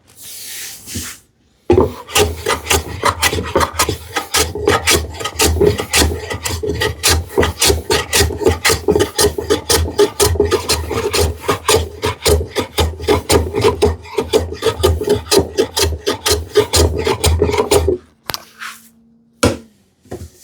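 Hand tool working the curved edge of a sapele drawer front in rapid back-and-forth strokes, about four a second, shaping the sawn arc down towards a pencil line. The strokes start about two seconds in and stop a couple of seconds before the end, followed by a knock or two.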